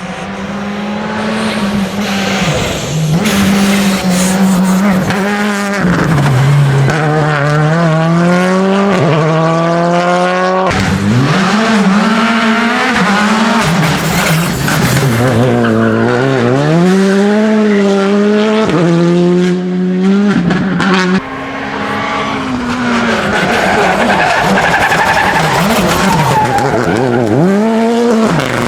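Rally car engine run hard, its pitch repeatedly climbing under acceleration and dropping at gear changes and lifts, with tyre noise from the car sliding. The sound breaks off abruptly about ten seconds in and again near twenty-one seconds.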